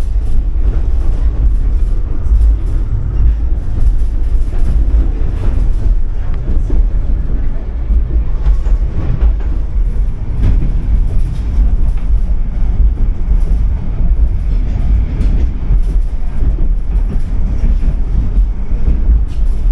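Tram running on its rails: a steady, loud low rumble with occasional knocks from the wheels on the track.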